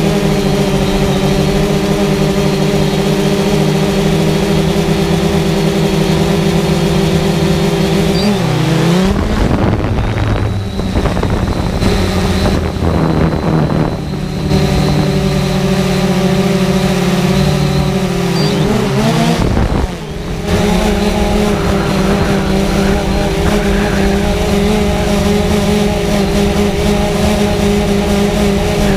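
Quadcopter drone's electric motors and propellers buzzing steadily in flight. The pitch bends and wavers as the motors change speed about nine seconds in and again about twenty seconds in, then settles back to a steady buzz.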